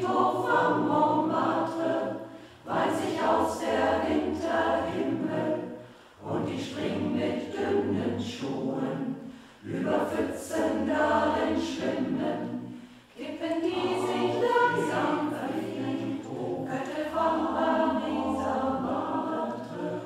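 Choir singing a cappella in phrases of three to four seconds each, with short breaks for breath between them.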